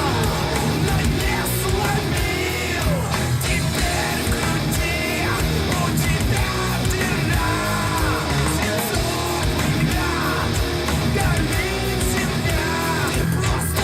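Heavy rock song with sung vocals and guitars played through S90E loudspeakers fitted with Alphard ETP-1300S2 midrange and TW-318 tweeter drivers.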